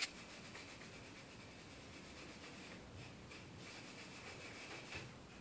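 Cloth rubbing dark oak wax into a wooden block along the grain: a faint, steady rubbing with a few slightly louder strokes about three seconds in and near the end.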